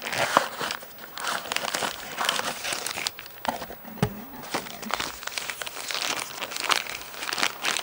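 Rustling and crinkling of a new camera's soft white protective wrap and its cardboard box as the wrapped camera is lifted out and handled, with scattered clicks and a knock about four seconds in.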